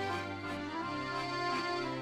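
Background music: sustained instrumental notes with slow chord changes.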